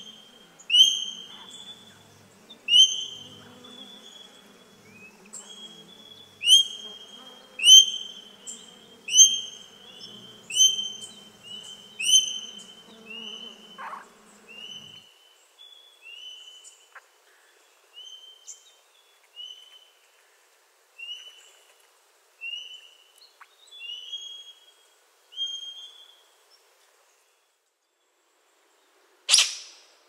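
Australian king parrot calling: a long series of short, high piping notes, about one a second, growing softer after the middle. Near the end comes a single loud, harsh screech.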